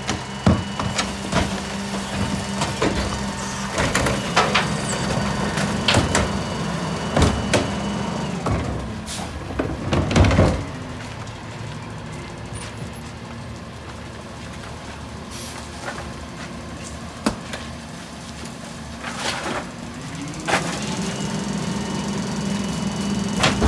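New Way rear-loader garbage truck working its hydraulics: the engine held at a raised, steady speed with a hydraulic whine while the cart tippers dump two plastic Euro carts, with repeated knocks and clatter of the carts and a loud bang about ten seconds in. The engine then drops back to idle and rises again with the whine about twenty seconds in as the hydraulics cycle once more.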